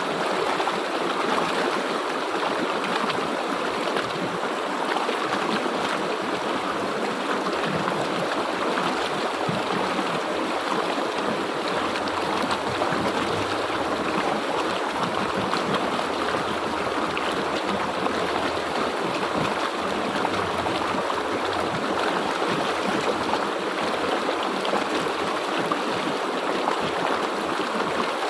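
River water flowing steadily over rocks, a continuous even rush with light gurgling.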